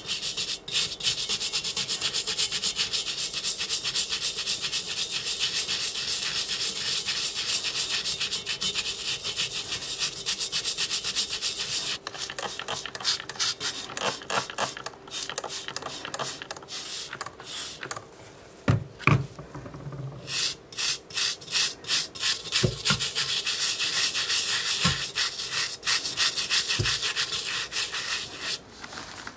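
A toothbrush scrubbing the wet, rusty steel of a WWII German helmet: fast, scratchy back-and-forth strokes. About halfway through the scrubbing breaks off for a few separate short bursts and soft knocks as a trigger spray bottle is used on the helmet, then the fast scrubbing resumes.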